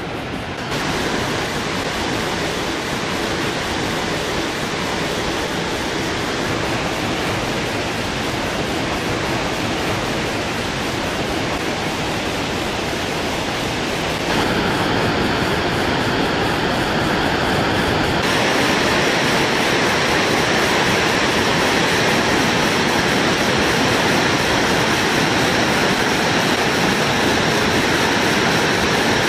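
Victoria Falls on the Zambezi River: the steady rushing roar of a great waterfall, even and without pauses, getting louder in steps at cuts about 14 and 18 seconds in.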